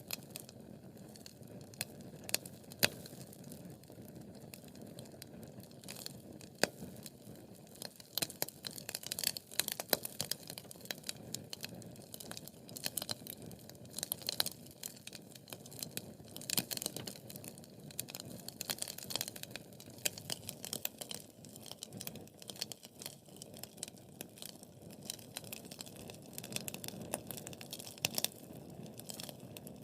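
Wood fire crackling: frequent sharp pops and snaps over a soft steady hiss of burning, the snapping growing busier and louder about eight seconds in.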